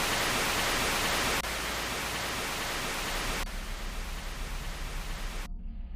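Steady hiss of static noise, like an untuned TV or radio, that drops in loudness twice and cuts off suddenly near the end.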